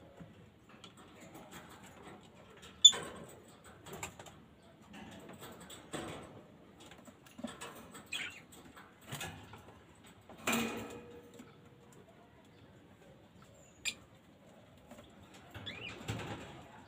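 African lovebirds fluttering and moving about in a cage, with scattered knocks and clicks and a few short chirps. The sharpest click comes about three seconds in.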